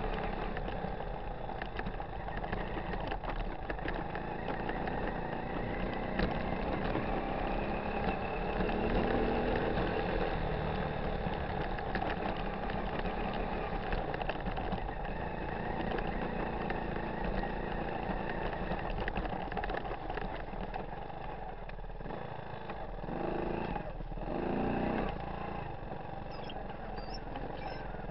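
1985 Honda ATC 125M three-wheeler's single-cylinder four-stroke engine running steadily as the machine is ridden, with a couple of brief swells in level about three-quarters of the way through.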